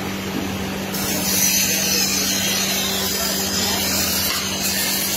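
Workshop machinery with an electric motor running steadily: a constant low hum under a steady rushing noise.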